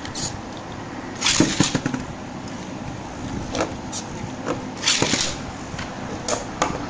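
Beyblade Burst tops launched into a plastic stadium and spinning: a steady whirring scrape of their tips on the plastic floor, broken by sharp clacks as they strike each other and the stadium wall, with a loud cluster of clacks about a second and a half in.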